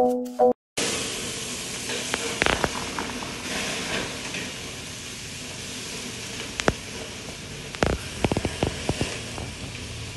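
Beef burger patties sizzling on a gas grill over lit burners: a steady hiss with occasional sharp pops and crackles. A short marimba jingle cuts off just before it.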